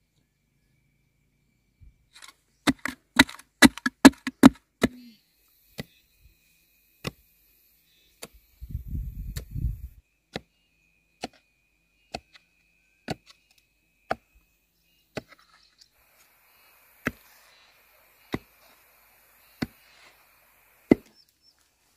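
Hoe blade chopping into hard, dry soil, a sharp strike each time. There is a quick run of strikes near the start, then single blows about once every second or so. A short low rumble comes a little before the middle.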